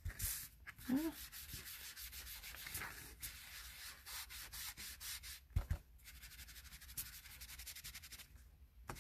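Small ink sponge being dabbed and rubbed over paper and cardstock: a quick run of soft scuffing strokes, with one dull knock a little past halfway.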